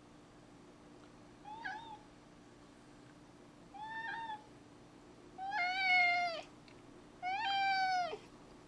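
Tabby housecat meowing four times, 'talking' about a lizard it has spotted: two short meows, then two longer, louder drawn-out meows that fall in pitch at the end.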